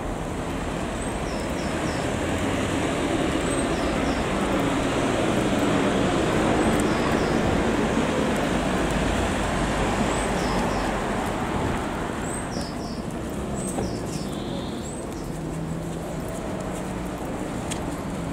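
Road traffic noise: a vehicle's engine and tyre noise swelling for several seconds and then fading away.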